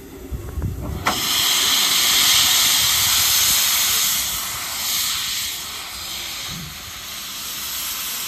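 Steam locomotive 86 1333-3 venting steam low at the front near the cylinders: a loud hiss bursts in suddenly about a second in and goes on steadily, easing off slightly after the midpoint.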